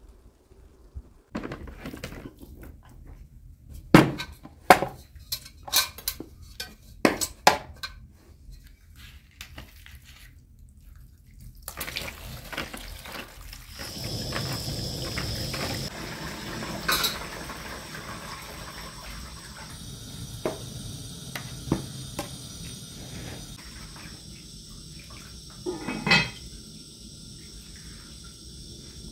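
Clinks and knocks of dishes and utensils being handled, then water poured from a jug over raw chicken pieces in a plastic colander. From about halfway through, a portable gas burner runs with a steady hiss, with a few more knocks of pots and bowls.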